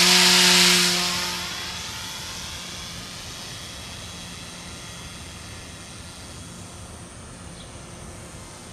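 Electric motor and propeller of a homemade radio-control airplane running at takeoff power: a steady whine that starts loud, then fades over about two seconds and carries on fainter.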